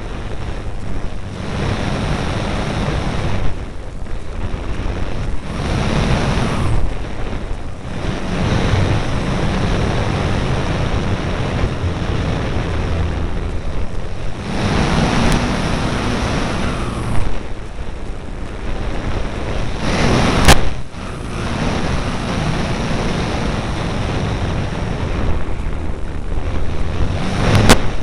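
Airflow rushing over the microphone of a keychain camera riding on an E-flite Apprentice RC airplane in flight, with the low drone of the plane's electric motor and propeller underneath. The rush swells and fades every few seconds as the plane banks. There is one sharp click about twenty seconds in.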